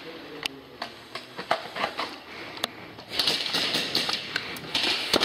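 Scattered sharp clicks of airsoft guns, then from about three seconds in a dense run of rapid airsoft gunfire: fast clicking shots over a high hiss.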